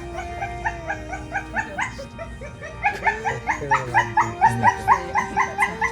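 Dog whining in rapid short yelps, about five or six a second, growing louder about halfway through, over a slow song.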